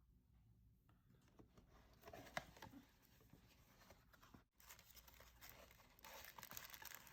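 Faint rustling and crinkling of something being handled, with a few soft clicks, one sharper about two and a half seconds in.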